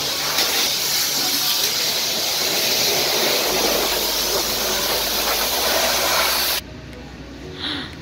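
Pressure-washer lance spraying high-pressure water onto a car, a loud steady hiss of spray. It cuts off suddenly about six and a half seconds in.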